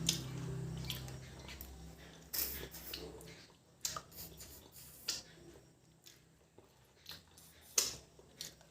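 Close-up eating sounds of mutton curry and rice being eaten: wet chewing and mouth smacks heard as scattered sharp clicks and squelches, a second or so apart.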